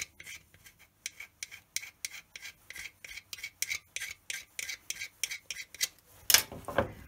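A sculptor's modelling tool (stack) scraping plasticine flush over the filled coin slot of a plaster piggy bank, in quick repeated strokes about four a second. A louder rustle of handling comes near the end.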